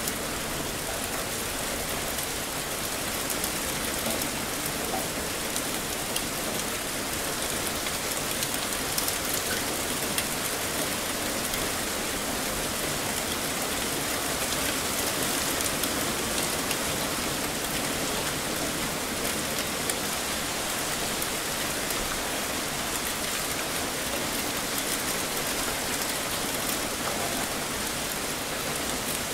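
Heavy rain falling steadily, a dense even hiss of rain on surfaces.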